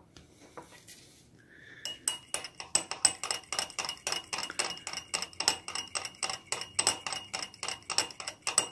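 A metal spoon stirring milk in a glass mug, clinking rapidly against the glass wall at several strikes a second, starting about two seconds in.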